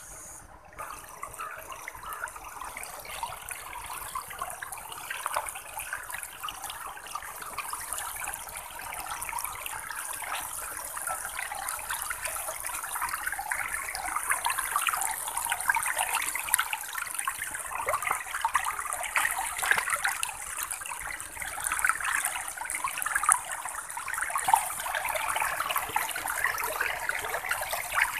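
Shallow water running fast through grass in a narrow channel: a steady rushing, splashing noise that grows a little louder toward the end.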